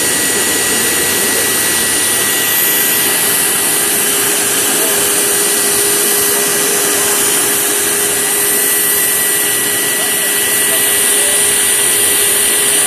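1963 Chrysler Turbine car's A-831 gas turbine engine running steadily: a constant airy rush with a steady high whine over it, and no change in speed.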